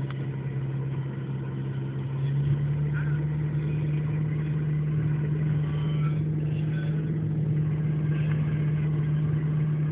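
An engine running steadily. About two and a half seconds in, its pitch and level step up a little, and it holds there.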